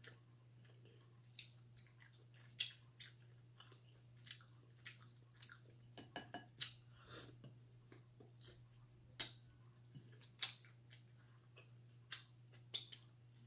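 A person chewing shrimp in butter sauce: soft, irregular wet mouth clicks and smacks, with fingers handling the food in the bowl.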